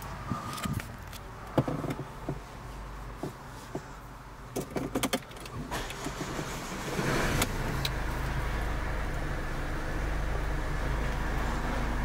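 Keys clicking and jangling in the ignition of a Mercedes GLA, then, about seven seconds in, the engine cranks briefly and catches. It settles into a steady, low idle.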